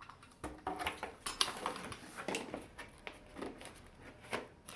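Floor-lamp parts being handled and set down while unpacked: scattered light knocks and clinks with a little rustling.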